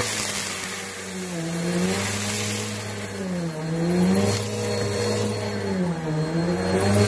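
Bissell Helix Turbo upright vacuum cleaner running on carpet as it is pushed back and forth. Its motor hum dips in pitch and rises again about every three seconds, the loudness swelling and falling with it.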